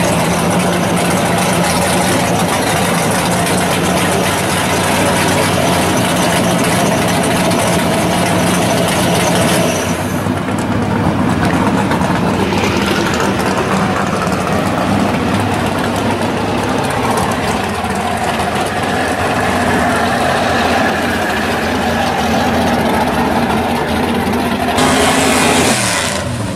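Engine of a 1969 Camaro pro street drag car idling loudly and steadily. Its tone changes about ten seconds in. Near the end comes a louder rush with the engine note rising as it revs.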